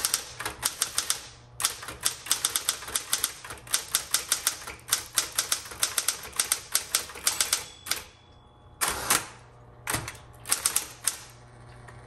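Smith-Corona Electra 210 electric typewriter being typed on in quick runs of sharp key strikes over the steady low hum of its running motor. The typing pauses for about a second a little past the middle, then a few more strikes follow.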